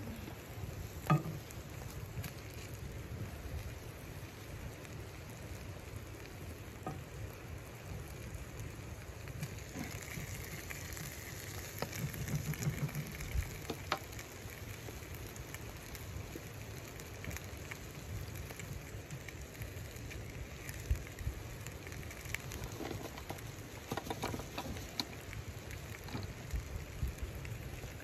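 Chicken pieces sizzling steadily in a skillet on a wood stove, with a few sharp knocks from the pan, the loudest about a second in.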